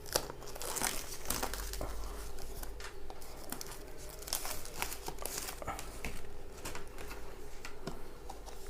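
A sealed cardboard retail box being opened by hand: irregular crinkling, rustling and small tearing and scraping sounds of the seal and packaging being worked, with no steady rhythm.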